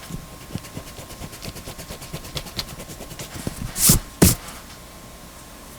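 A mechanical pencil's eraser rubbed quickly back and forth on paper, a fast even run of scratchy strokes, followed by two louder, longer swipes about four seconds in.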